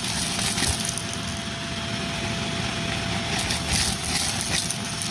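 Vacuum cleaner running steadily with a crevice tool on a metal wand, a thin steady whine over the suction noise, with scattered clinks of debris being sucked up the wand, a cluster of them about three and a half seconds in.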